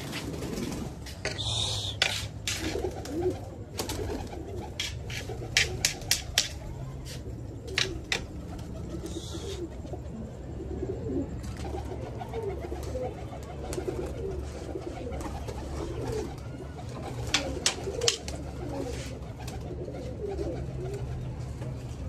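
Domestic pigeons cooing continuously, with sharp clicks and knocks scattered through, bunched in the first several seconds and again near the end.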